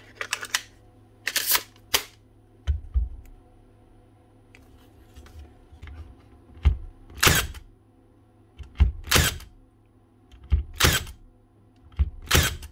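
Milwaukee M18 cordless crown stapler firing staples into a wooden board: about half a dozen sharp shots, often in quick pairs. The recharged gas spring at 110 psi is still a little short of pressure, so the staples are left standing slightly proud.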